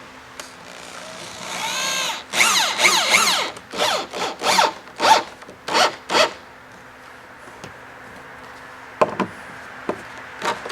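A drill bit boring into a 2x6 wooden brace for lag screws, in about eight short rasping bursts over four seconds as the bit works down into the wood. A few light knocks follow near the end.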